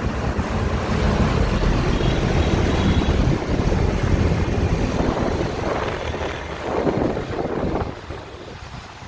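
Road traffic rumble with wind buffeting the microphone, the steady noise of vehicles running past on the road. It eases somewhat near the end.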